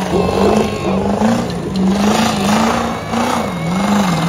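Truck engine held at high revs during a burnout, its pitch wavering up and down over a steady rushing noise.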